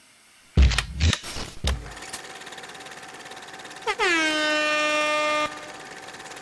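Intro logo sound effect: a few short low hits, then a horn-like blast that drops in pitch as it starts and holds for about a second and a half before cutting off.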